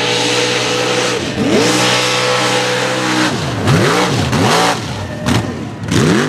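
Square-body Chevrolet pickup mud truck's engine revving hard. It is held at high revs, drops briefly just after a second in, climbs and holds high again, then is blipped sharply up and down several times in the second half, over a hiss of spinning tires throwing dirt.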